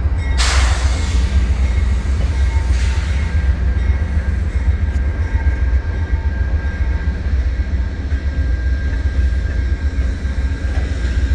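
Amtrak Heartland Flyer passenger train running with a steady deep rumble. A short loud hiss comes about half a second in and a fainter one about three seconds in.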